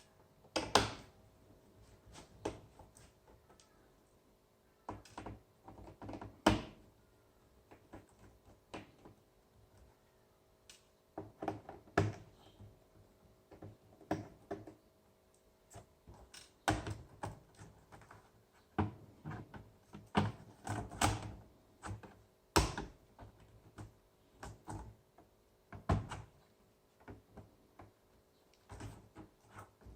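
Irregular clicks and knocks of a laptop being handled or worked on, sometimes in quick clusters, over a faint steady hum.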